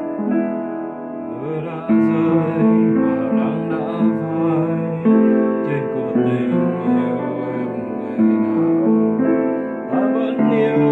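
Piano playing a slow instrumental passage of sustained chords and melody, with new notes struck about every second.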